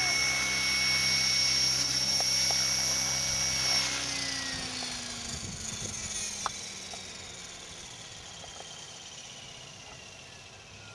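Align T-REX 600 RC helicopter sitting on the grass with its rotor turning: a steady high whine for about four seconds, then the whine falls in pitch and fades as the rotor spins down. One small click partway through.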